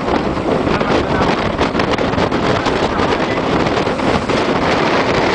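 Small fishing boat under way: its motor running steadily, with wind buffeting the microphone and water rushing past the hull.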